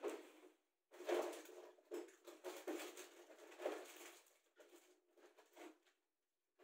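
Faint, irregular rustling and rummaging, coming and going in short spells with brief pauses.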